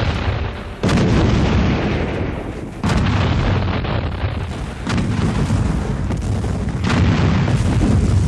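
Artillery bombardment: heavy cannon booms about every two seconds, four in all, each with a long low rumble that runs into the next.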